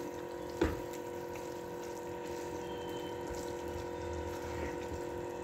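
Steady hum of a motor with a few fixed tones over a light hiss, and one sharp knock, a spatula striking the pan, about half a second in.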